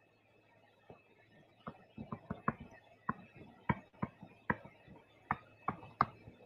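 Stylus tapping on a tablet screen while handwriting: a string of light, sharp clicks at irregular intervals, starting about a second in.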